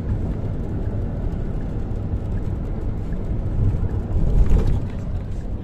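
Steady low rumble of a vehicle on the move, engine and road noise, growing louder for a moment about four seconds in.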